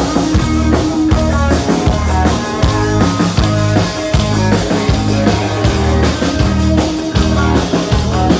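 Rock band playing live: drum kit, bass guitar and electric guitars with a steady beat and a repeating bass line.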